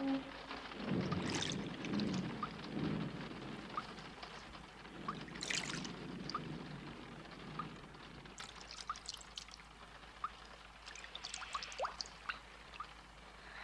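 Water pouring and trickling in irregular swells, with scattered drips plinking throughout.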